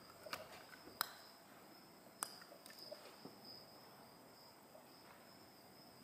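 Near silence: a faint, steady, high-pitched cricket chirr, with a few light clicks as small bottles and a steel measuring cup are handled.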